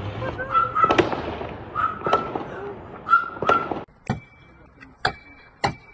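Several sharp bangs echoing between buildings, typical of distant gunfire, with raised voices. About two-thirds of the way in this cuts off, giving way to a steady high beep and evenly spaced ticks about twice a second.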